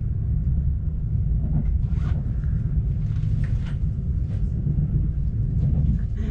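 Steady low rumble of a Swiss passenger train running along the line, heard from inside the carriage, with a few faint rattles.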